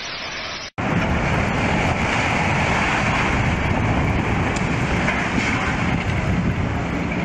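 Steady rushing rumble of a building collapsing in a demolition, mixed with wind buffeting the phone microphone. It cuts out for an instant under a second in, then carries on just as loud.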